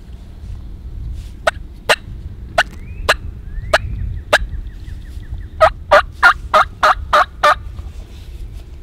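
Wild turkey calling: sharp single clucks about every half second, then a quick run of about seven louder yelps near the end.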